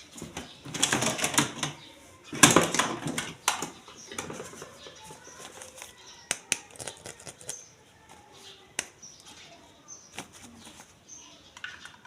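Plastic toy packaging being handled during an unboxing: two bursts of dense crinkling and clicking in the first few seconds, then scattered clicks and taps.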